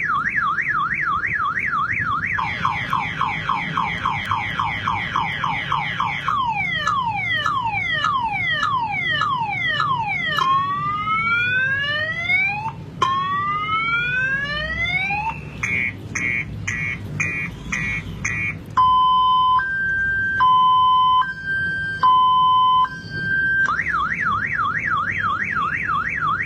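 Multi-tone electronic alarm siren, car-alarm type, cycling through its tones: a fast up-and-down warble, a quicker warble, then falling chirps, rising sweeps, rapid beeping, and a high-low two-tone alternation before it returns to the warble near the end.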